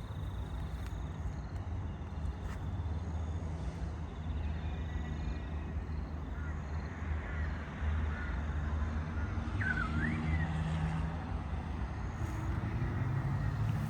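Creek-side outdoor ambience: a steady low rumble with scattered bird calls, the clearest a short call that sweeps up and down about ten seconds in.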